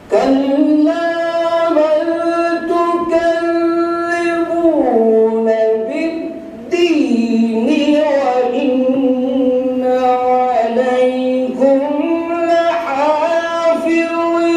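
Solo voice of a qari reciting the Quran in the melodic tajweed style, holding long notes and sliding between pitches, with a short breath pause about six seconds in.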